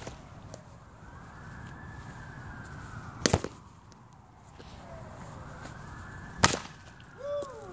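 Two sharp cracks of a bat hitting a ball, about three seconds apart, during batting practice into a net.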